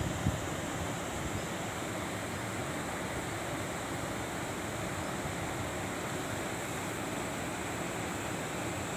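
Steady rushing of flowing water, an even hiss that does not change while a large lift net is raised out of the river.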